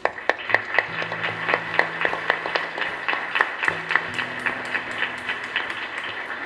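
Audience applauding, a room of people clapping, fading toward the end, over soft background music with sustained low notes.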